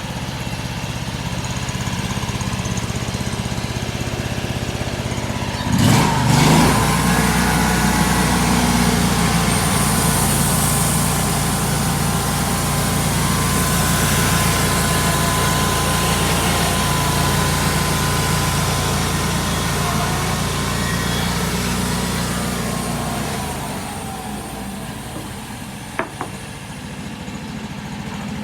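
Engine-driven homemade sawmill running. About six seconds in, the blade bites into a small log and saws steadily through it, with a high steady whine over the engine, easing off again about twenty-three seconds in. A single sharp click comes near the end.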